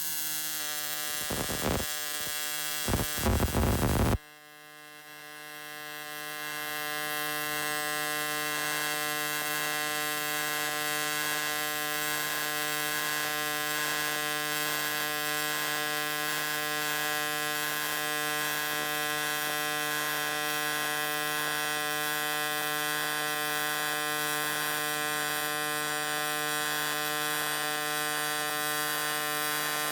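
AC TIG welding arc on aluminium at 160 A, a steady buzzing hum. It is uneven for the first four seconds, drops out suddenly, then builds back up over a few seconds and holds steady.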